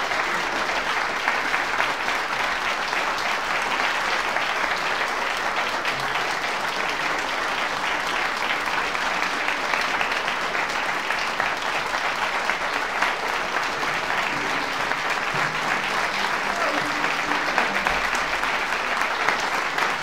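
Audience applauding: dense, steady clapping that holds at an even level.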